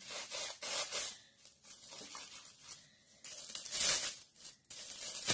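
Many layers of aluminium foil crinkling and tearing as they are pulled open with a knife and carving fork. It comes in several bursts, the loudest a little under four seconds in.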